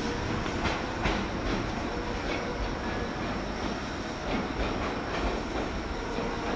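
Meitetsu electric train running along the rails, its wheels clacking over rail joints in a series of short clicks, with a faint steady tone under the running noise.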